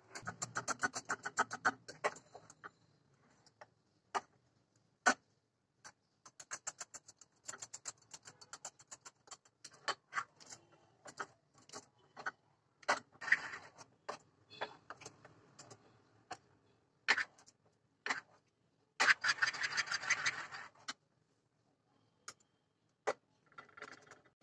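Metal spoon stirring a thick flour-and-water batter in a bowl, clicking and scraping against the bowl in quick irregular strokes. The stirring comes in denser runs near the start and again about twenty seconds in.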